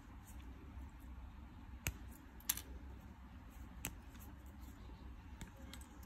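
Small handling sounds of a float fishing rig worked between the fingers: four or five short, sharp clicks and ticks of the line, rubber stoppers and float, over a low steady hum.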